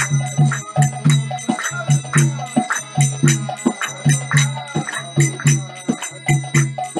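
Devotional kirtan: a man singing while small hand cymbals (kartals) strike a fast, even rhythm with a bright ringing tone, over deep drum beats.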